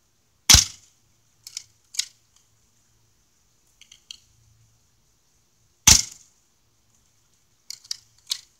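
Two loud, sharp airsoft gun shots about five seconds apart, aimed at an old camera target, each followed within a second or two by a few lighter clicks and taps.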